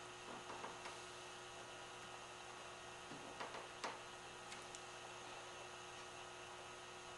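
Steady low mains hum, with a few faint short scratches and light taps about half a second in and again between three and four seconds in, as tail outlines are traced onto a wooden bracket foot.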